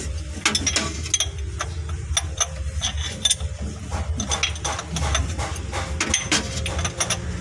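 Metal tools clicking and clinking irregularly against a car distributor while the contact-breaker points gap is being set, over a steady low hum.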